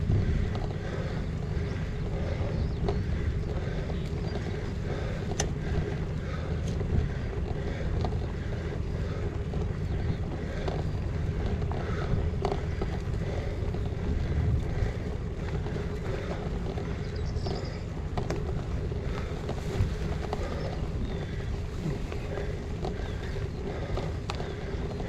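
Wind buffeting the microphone of a GoPro mounted on a moving gravel bike, over the steady low rumble of the tyres rolling on the track, with scattered small clicks and rattles.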